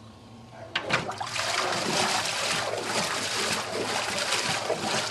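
A click about a second in, then water splashing and churning steadily in a washing machine tub.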